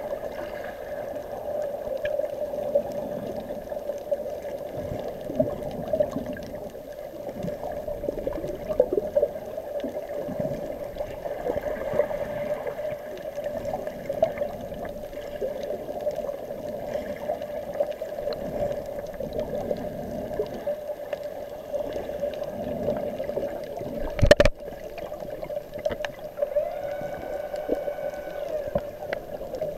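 Underwater sound through a camera housing: a steady hum with irregular bubbling and gurgling, one sharp knock about three-quarters of the way in, and near the end a few tones that rise and then hold.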